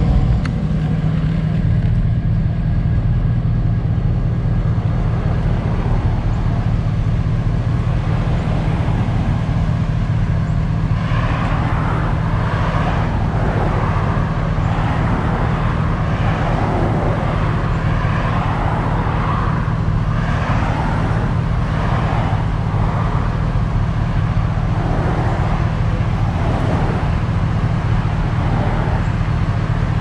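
Traffic sitting in a queue: a steady low engine hum from the idling pickup truck stopped just ahead. From about a third of the way in, a rising-and-falling traffic noise is added.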